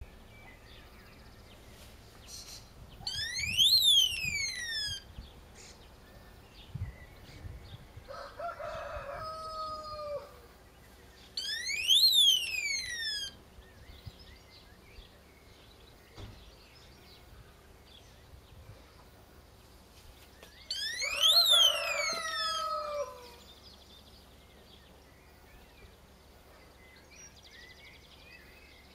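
Motion-triggered electronic alarm module sounding three times, each a single siren sweep of about two seconds that rises in pitch and falls back, set off by the PIR sensor detecting movement. A rooster crows twice, once between the first two alarms and once together with the third.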